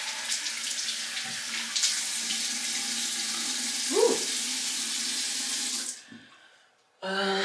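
Water running from a faucet into a sink, with a few small knocks, stopping about six seconds in.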